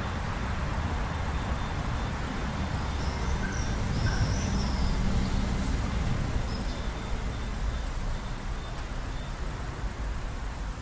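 Steady low outdoor rumble, like distant traffic, that swells a little in the middle, with a few short bird chirps.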